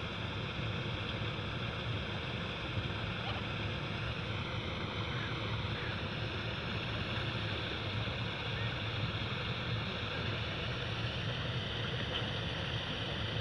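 Steady low outdoor rumble with no distinct events, the kind of noise that wind on the microphone or far-off traffic makes.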